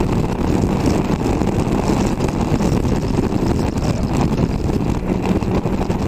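Triumph Tiger Sport 660's three-cylinder engine running steadily at highway speed, mixed with wind noise.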